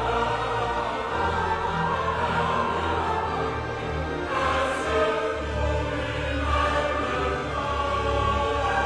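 Choral film score: a choir singing slow, sustained lines over a low bass accompaniment.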